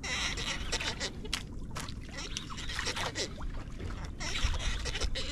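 Seawater sloshing and splashing against the hull of a small fishing boat, in uneven surges, over a steady low rumble.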